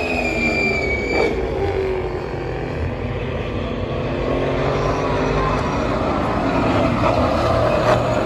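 V8 SuperUtes race utes driving past on the circuit in a pack over a steady engine drone, their engine notes falling in pitch as they go by.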